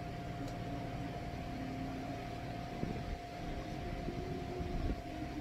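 Steady machine hum and hiss with a constant whine over it, and a couple of soft knocks about three and five seconds in.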